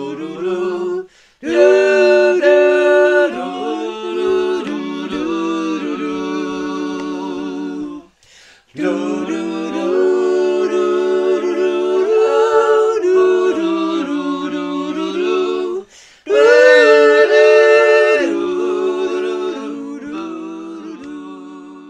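A small mixed group of amateur voices singing a cappella in several parts, in sung phrases broken by short pauses; the last phrase fades away near the end.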